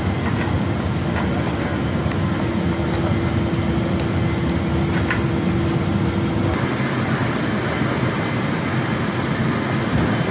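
Steady, loud machinery rush filling an aircraft cargo hold, with a few light metallic clicks from chain tie-down binders being worked on the floor. A faint steady hum runs through the middle and stops about two-thirds of the way in.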